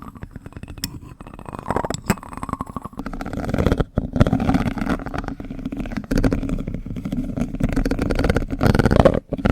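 Close-miked plastic-spoon ASMR trigger sounds: dense crackly rubbing and clicking, heavy in the low end. There is a short break about four seconds in, after which the sounds come louder.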